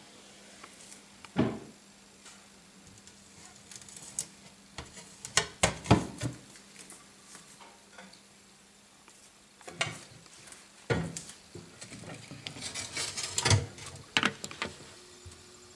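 Scattered light knocks, clicks and clatter at irregular intervals, busiest in clusters about five seconds in and in the last third, over a faint steady low hum.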